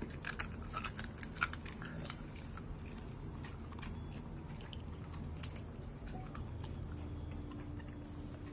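A dog crunching and chewing a treat just given to it, with a run of sharp crunches over the first couple of seconds that thins out after that.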